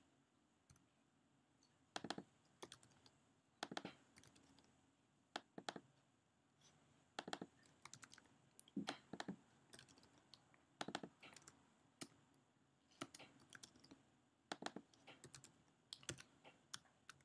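Typing on a computer keyboard: short bursts of a few quiet keystrokes, with pauses of a second or two between them.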